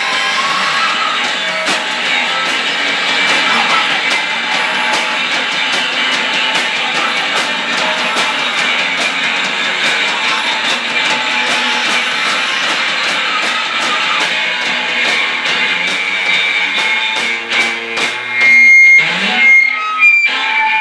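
Live rock music from an electric guitar and a drum kit played in a small room, running steadily. Near the end the playing breaks up into a few loud, short, pitched blasts.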